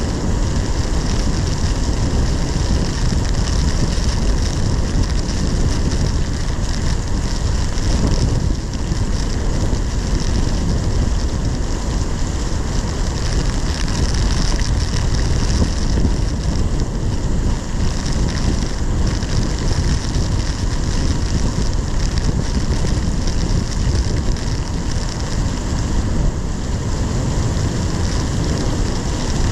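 Severe thunderstorm wind and heavy wind-driven rain beating steadily on a car, heard from inside, with a constant deep rumble of wind buffeting.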